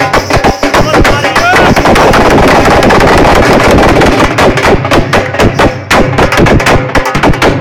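Two dhol drums beaten fast and very loud, a dense stream of sharp strokes that runs almost continuously for a couple of seconds in the middle.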